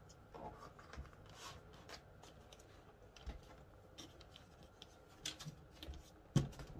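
Hands moving a laptop on a plastic laptop cooling pad: scattered light taps, clicks and rubbing of the case against the pad and desk mat, with a sharper knock near the end.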